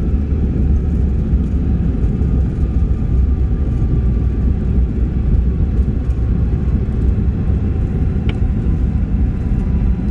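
Cabin noise of a CRJ200 regional jet rolling along the runway after landing, heard from inside the cabin: a steady, loud low rumble from the wheels and the rear-mounted turbofan engines, with a faint whine slowly falling in pitch. A brief click about eight seconds in.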